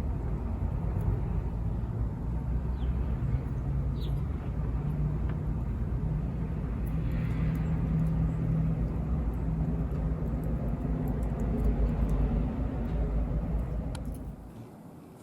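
Steady low outdoor rumble, like distant traffic or wind on the microphone, with a few faint high chirps. It drops away suddenly near the end.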